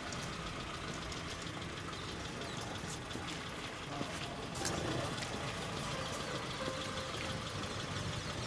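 Maruti Gypsy open jeep's engine running steadily at low speed as it rolls slowly past.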